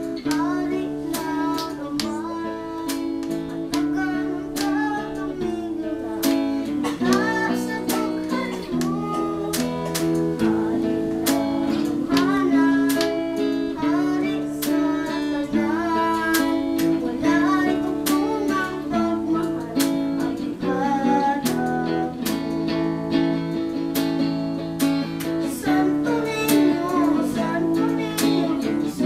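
A man's singing voice, joined by a boy's, over a strummed acoustic guitar keeping a steady rhythm.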